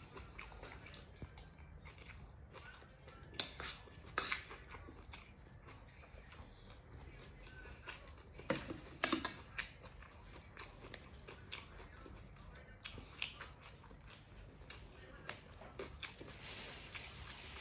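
A person eating close to the microphone: scattered crunches and chewing with small clicks, as mouthfuls with fresh raw vegetables are bitten. A short hiss comes near the end.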